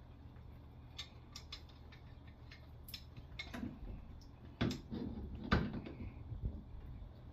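Scattered metal clicks and knocks of hand tools working on a faucet to get the old cartridge out, with two louder knocks a little past the middle.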